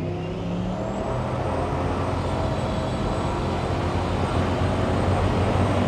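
Turbocharged LS1 V8 of a 1980s Holden WB ute pulling hard under acceleration, heard from inside the cabin and growing gradually louder, with a high thin whistle that rises in the first second and then holds. The driver says it was on only about 30% throttle.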